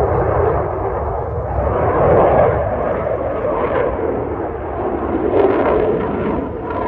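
Eurofighter Typhoon's twin Eurojet EJ200 jet engines, a loud roar that swells and eases as the fighter manoeuvres overhead.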